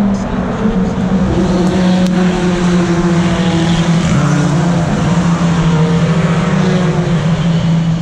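BTCC touring cars' turbocharged 2.0-litre four-cylinder engines running hard as the cars pass at race speed. The engine note steps down in pitch a few times.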